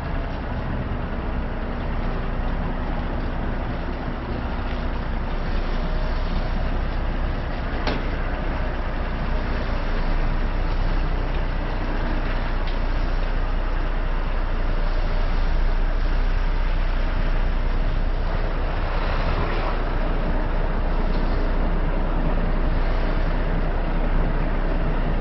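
A heavy truck engine running steadily, with one sharp click about eight seconds in.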